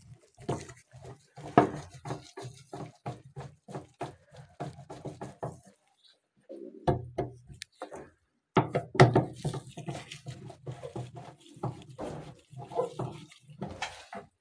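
Background music with quick, busy notes, cutting out briefly about six seconds in and again about eight and a half seconds in.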